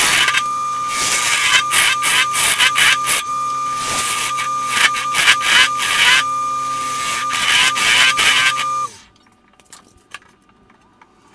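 A wood lathe runs with a steady motor whine while a bowl gouge roughs down a square glued-up bloodwood and canary wood blank. The cut on the corners makes a rapid clatter of sharp hits with loud bursts of cutting noise. About nine seconds in the lathe is switched off: the whine falls away and only a few light clicks follow.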